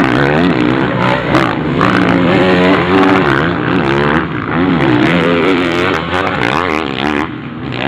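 Motocross bikes' engines revving hard as they race past, their pitch rising and falling again and again through throttle and gear changes, several bikes overlapping.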